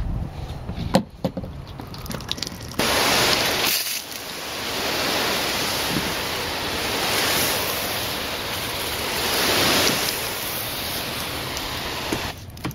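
Garden hose with a spray nozzle spraying water onto solar panels: a steady rushing hiss that starts suddenly about three seconds in, dips briefly a second later, and stops near the end. A sharp click comes about a second in.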